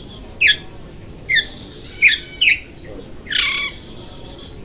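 Oriental magpie-robin (kacer) giving a string of sharp calls that each fall steeply in pitch, five in about four seconds, with two close together near the middle.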